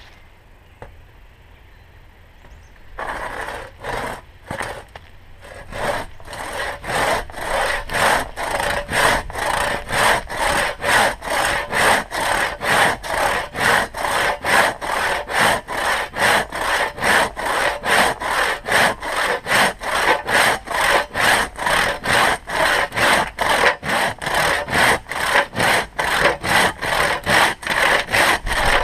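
One-man crosscut saw with a 48-inch blade cutting through a log by hand. After a few short starting strokes about three seconds in, it settles into a steady back-and-forth rhythm of about two to three strokes a second.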